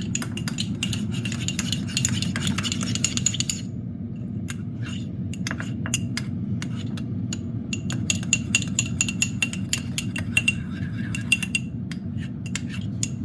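A teaspoon stirring a thick mayonnaise, ketchup and Worcestershire dipping sauce in a bowl, clinking quickly against the sides, slower and scattered for a few seconds in the middle, then quick again. A steady low hum runs underneath.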